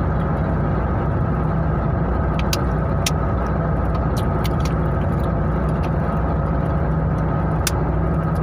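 Steady engine and tyre noise inside a car's cabin as it cruises along a motorway, with a few short clicks scattered through.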